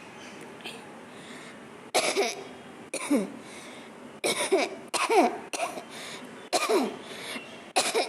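A person coughing hard on purpose: a string of about seven sharp, loud coughs beginning about two seconds in. Several end with the voice sliding down in pitch.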